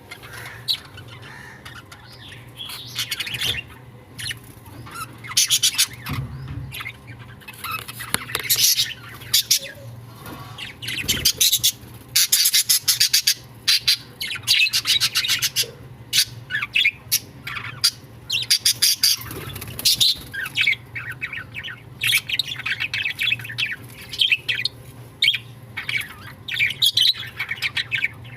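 Budgerigars chirping and chattering in repeated bursts of a second or two, with quieter chirps in between.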